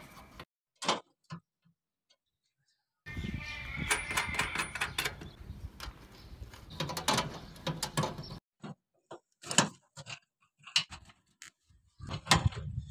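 Clicks, taps and knocks of metal parts and hand tools being handled while an air conditioner outdoor unit is fitted to its wall bracket and pipe fittings, in short clips broken by sudden silent cuts.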